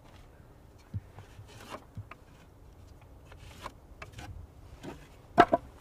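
Light taps and scrapes of a wooden pattern and a pencil on a lumber rafter board as the rafter tail is marked out, with a sharp double knock near the end.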